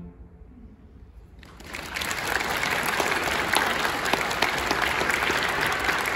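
After a short hush, an audience starts applauding about a second and a half in. The clapping quickly builds to dense, steady applause.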